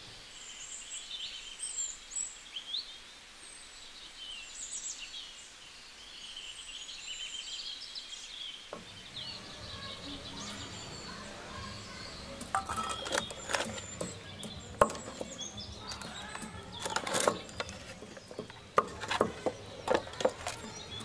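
Small birds chirping and twittering throughout. From about halfway, the wet squelching and slapping of hands rubbing a chilli-oil marinade into raw chicken pieces in a metal pot, in short irregular bursts that are the loudest sounds.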